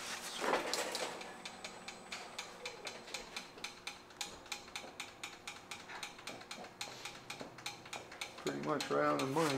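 Steady mechanical ticking, a few evenly spaced sharp clicks a second, with a short voice sound near the end.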